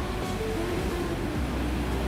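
Underwater sea ambience: a steady wash of noise over a deep low rumble, with a few faint held tones about the first second in.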